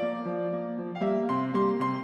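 Background music: a light piano tune, notes changing a few times a second.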